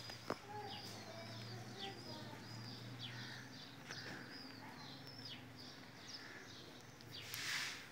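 Small birds chirping in the background: short high chirps repeating about two or three times a second. A brief rush of noise swells near the end.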